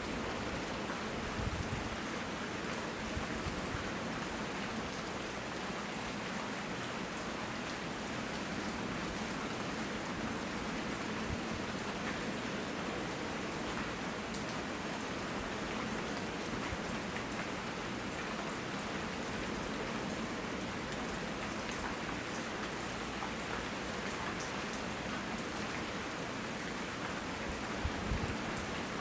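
Steady tropical rain falling, an even hiss with scattered ticks of drops on surfaces, and a soft low thump near the end.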